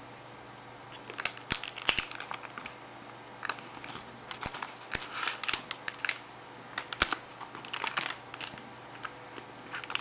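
Cupcake packaging being handled and opened, crinkling and tearing with sharp clicks and snaps, in irregular spurts from about a second in until near the end.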